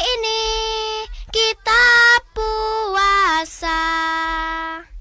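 A child's high voice singing a slow advertising jingle in a few long held notes with short breaks between them, the later phrases stepping down in pitch.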